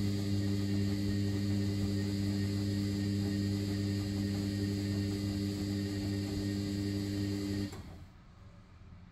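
Front-loading washing machine's drum motor humming steadily as it tumbles a soapy load during the main wash of a 90 °C boil-wash cycle, then cutting off abruptly near the end as the drum stops to pause before reversing.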